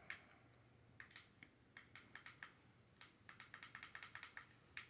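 Faint, irregular light plastic clicks and taps from handling a miniature remote-control car and its small plastic remote.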